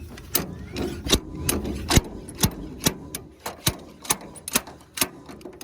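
Steady hammer blows on metal, about two strikes a second, some ringing briefly: a seized John Deere 24T baler wheel bearing race, heated with a torch to expand it, being knocked off its spindle.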